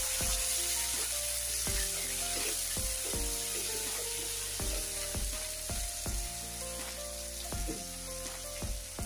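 Tomato wedges, ginger and chillies sizzling steadily in hot oil in a nonstick kadai, stirred now and then with a silicone spatula. Background music plays over it.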